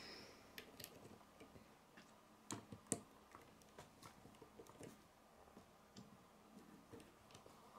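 Faint clicks and taps of plastic Lego bricks being pressed onto a model, with a few sharper clicks around two and a half to three seconds in.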